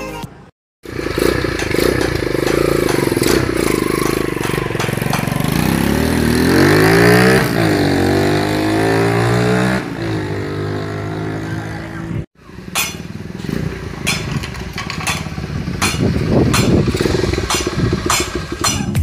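Honda GL Pro Neotech single-cylinder motorcycle engine running and being revved, its pitch climbing and falling a few times near the middle. The sound cuts out briefly twice.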